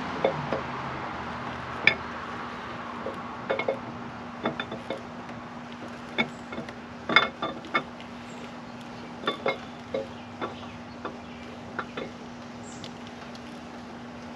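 Camshaft of a 6.1-litre Hemi V8 being slid slowly out of the engine block by hand, giving scattered light metallic clicks and clinks at irregular intervals as the lobes touch the cam bearings and block. A steady low hum runs underneath.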